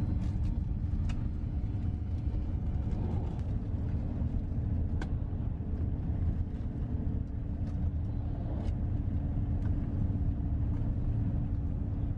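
Steady low rumble of a coach bus driving along the road, heard from inside the passenger cabin, with a constant hum running under it and a few faint clicks and rattles.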